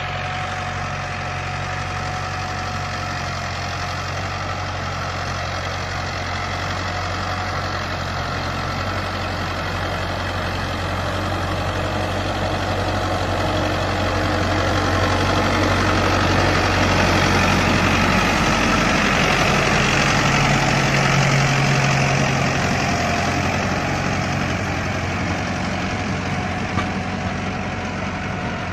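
Tractor's diesel engine running steadily under load as it drives a front-mounted reaper through a wheat crop. The sound swells through the middle and eases again near the end.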